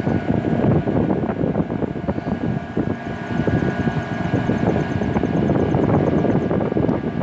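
1981 Emerson Quiet Kool 18,000 BTU window air conditioner running, its fan blowing air with a steady rushing noise over a faint steady hum.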